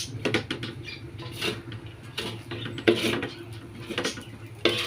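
Spatula scraping and tapping against a frying pan while stirring fried rice: a string of irregular scrapes and clicks.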